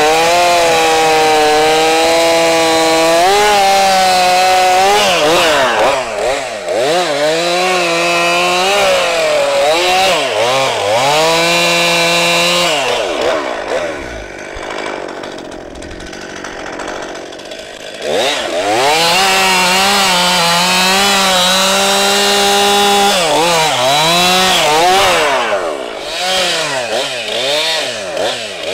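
Chainsaw bucking a large eastern white pine log. The engine runs steadily under load in the cut, then revs up and down. About halfway it drops to a quieter idle for a few seconds, goes back into a steady cut, and revs up and down again near the end.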